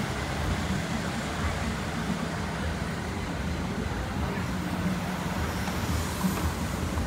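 Steady road traffic ambience: vehicles running past in a continuous low rumble, with voices faintly in the mix.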